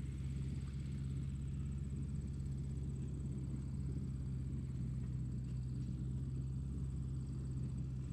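A tractor engine running at a steady speed: an even, low drone that does not rise or fall.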